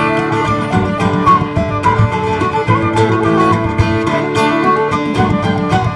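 Live acoustic folk band playing an upbeat tune: strummed acoustic guitar under a quick, ornamented melody from a wind instrument.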